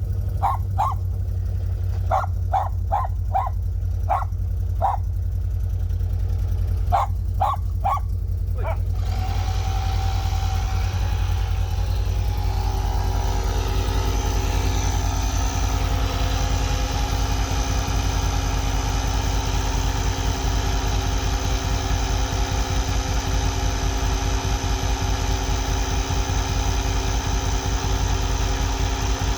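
Can-Am ATV engine idling steadily, with a dog barking in short runs through the first nine seconds. About nine seconds in, a small portable air compressor starts with a steady whine, pumping up the freshly plugged tubeless ATV tire.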